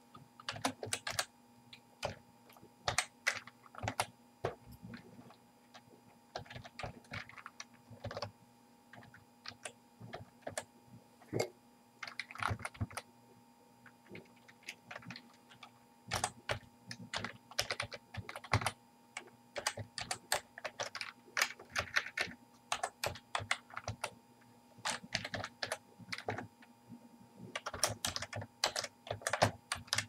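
Computer keyboard typing: irregular runs of keystrokes with short pauses between them, over a faint steady hum.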